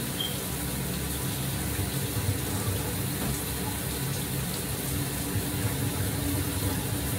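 Shower water running steadily, an even rushing hiss.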